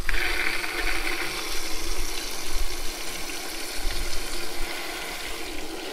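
Hose water rushing through a tractor engine block's water jacket and pouring out of the drain, a steady hiss, as the cooling passages are flushed of rust and sediment after an Evaporust soak.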